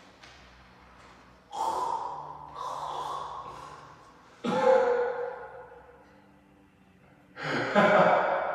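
A man's heavy, partly voiced breathing: four loud sighing exhalations a couple of seconds apart, each starting sharply and fading away.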